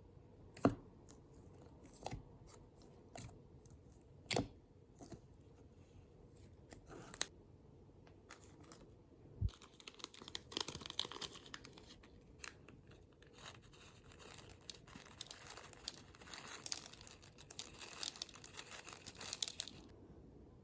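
Slime being handled by hand: a few separate sharp pops and clicks in the first half, then dense crackling and tearing from about ten seconds in as the slime is pulled apart.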